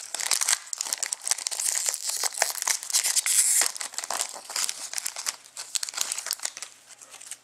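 Foil wrapper of a hockey trading-card pack being torn open and crinkled by hand: a dense, sharp crackle that thins out near the end.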